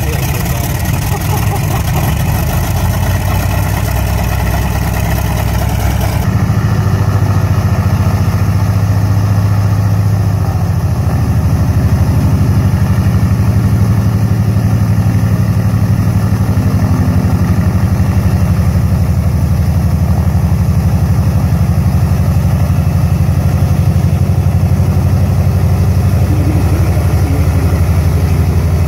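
Douglas A-1 Skyraider's Wright R-3350 Duplex-Cyclone 18-cylinder radial engine running steadily, a low rumble, shortly after a cold start. The tone changes abruptly about six seconds in, then stays steady.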